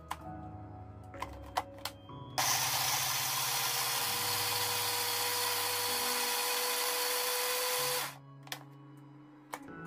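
Philips electric blender starts about two and a half seconds in and runs with a steady whine for about five and a half seconds, grinding chilies, garlic and cooking oil into a sambal paste, then cuts off suddenly. Before it starts, a few clicks as the jar is seated on the base.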